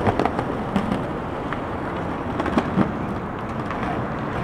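Skateboard wheels rolling on a concrete sidewalk: a steady rumble with a few scattered clicks.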